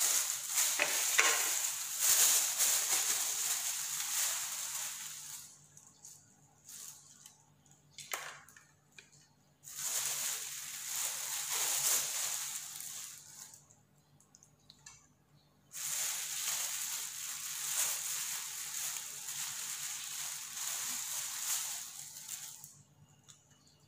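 Thin plastic bag rustling and crinkling as hands open it and pull raw fish out of it, in three long bursts with quiet pauses between.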